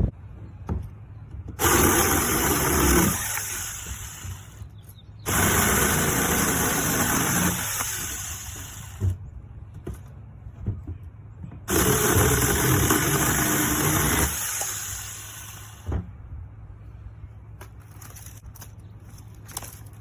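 Seesii battery-powered brushless mini chainsaw cutting wood. It runs in three spells of a few seconds each, with short pauses between them.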